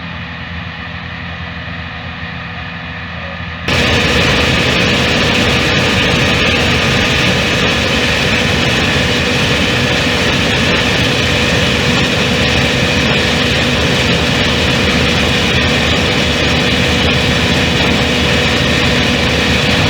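Combine harvester running steadily, its engine and threshing machinery making a constant hum. It gets suddenly louder and brighter about four seconds in.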